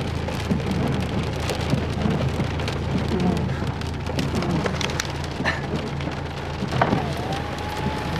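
Hail pelting a car's roof and windscreen, heard from inside the car: a dense, steady patter of small hard impacts.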